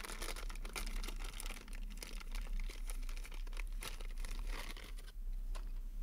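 Faint crinkling and rustling with scattered light clicks as the new replacement car door handle is handled, dying down near the end.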